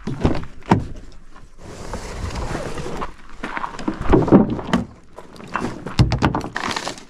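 Fishing gear being handled on a pickup's plastic-lined tailgate: a run of knocks and thumps, with a stretch of rustling about two seconds in and the heaviest thumps near the end.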